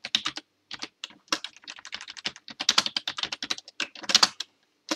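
Typing on a computer keyboard: quick, irregular keystrokes in short runs with brief pauses.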